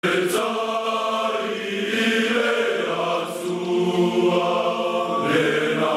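A choir of voices singing a slow chant, holding each note for a second or two before moving to the next.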